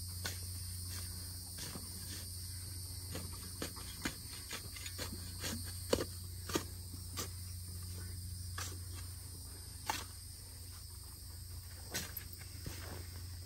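Insects droning steadily over a low steady hum, with scattered light clicks and knocks at irregular moments, the sharpest about six and ten seconds in.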